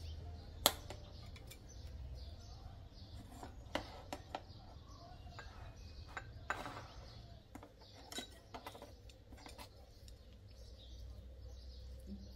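Kitchen utensils clinking and tapping against dishes and cookware in scattered sharp clicks, over a faint low background hum.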